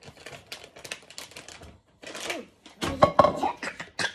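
Metal whisk clicking and scraping rapidly against a glass mixing bowl as egg batter is whisked. About three seconds in, a child's voice cries out briefly, the loudest sound.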